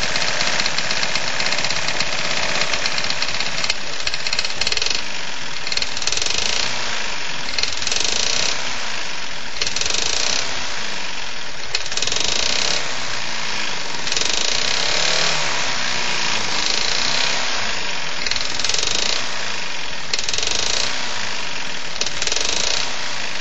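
Tecumseh Vantage 3.5 hp single-cylinder lawn mower engine running with a heavy, hammering knock, its note swelling and falling repeatedly. The owner takes the knock for rod knock in an engine that has never had an oil change.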